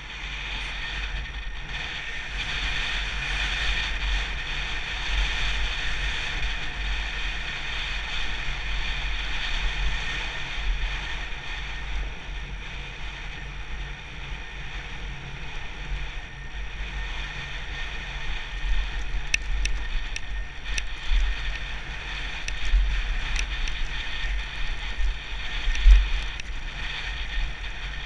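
Enduro motorcycle riding along a rough grassy track, its engine running under heavy wind buffeting on the camera microphone. A few sharp clicks come about two-thirds of the way through.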